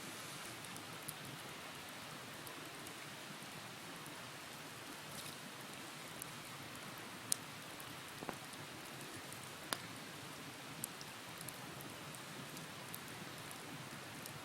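Wood bonfire burning with a steady hiss and occasional sharp pops and crackles, the loudest a little past the halfway point.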